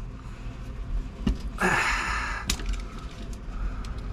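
A blade cutting and stripping old insulation off a battery cable: sharp clicks, with a short rasping scrape about a second and a half in.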